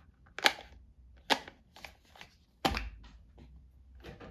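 Art supplies being handled and set down on a tabletop: three sharp clacks, the last with a duller thud, among lighter taps and rustles.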